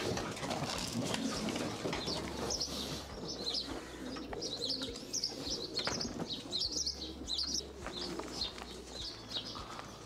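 Racing pigeons cooing in and around the loft, with many short, high bird chirps scattered through and a few sharp clicks.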